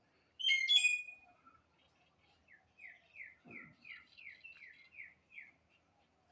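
A songbird singing: a loud, sharp call about half a second in, then a run of about nine short whistled notes, each falling in pitch, about three a second.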